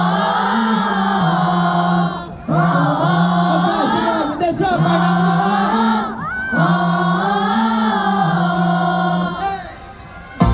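Live concert music: a sung, choir-like melody in about four phrases of roughly two seconds each, with short breaks between them, over a held low note.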